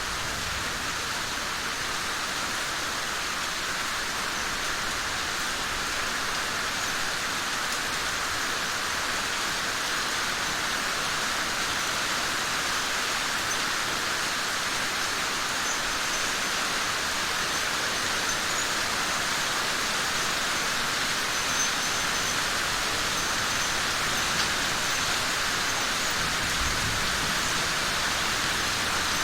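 Steady rainfall, an even hiss of drops with no break or change in strength.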